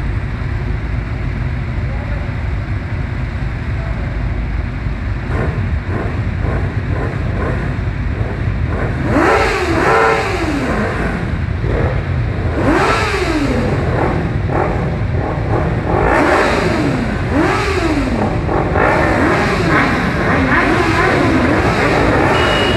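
A pack of motorcycles running together, idling at first, then from about nine seconds in their riders repeatedly revving the engines, each rev climbing and falling in pitch, several overlapping.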